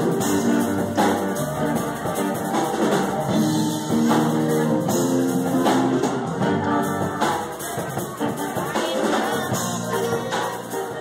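Rock music with drums and electric guitar playing to a steady beat.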